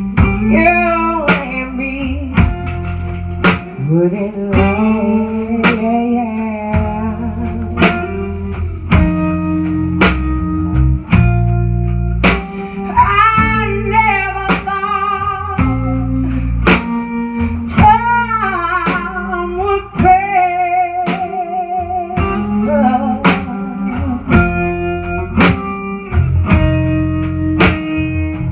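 Live blues band playing: a woman's lead vocal over electric bass, electric guitar and drum kit, with a steady drum beat throughout.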